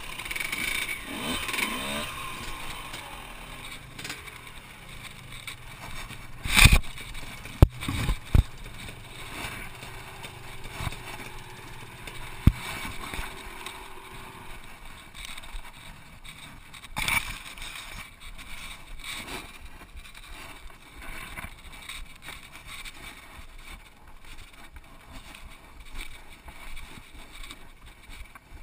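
Dirt-bike engines running faintly in the distance under a steady noisy haze, with several sharp knocks, the loudest about six and a half seconds in.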